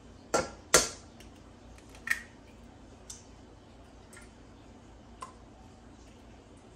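An eggshell being cracked: two sharp taps in the first second and a third about a second later, then a few light clicks of shell as the egg is pulled apart over a stainless steel bowl.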